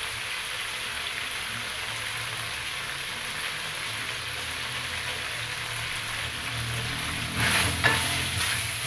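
Beef liver and hump pieces with onions sizzling steadily in a wok as they fry. Near the end a wooden spoon stirs them, scraping and knocking against the pan.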